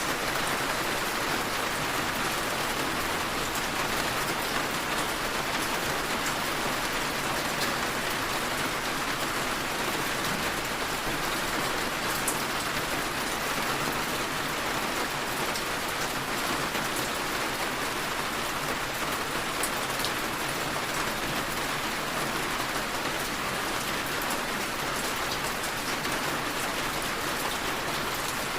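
Steady rainfall, an even hiss with a few scattered drop ticks.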